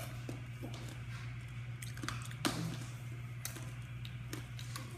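Scattered wet mouth clicks and smacks of someone sucking and chewing sour hard candy, over a steady low hum.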